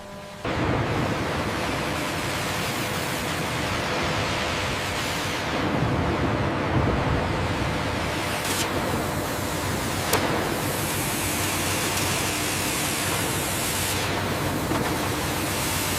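Steady rushing noise of log-processing machinery, with faint steady hums under it and a sharp tick about ten seconds in.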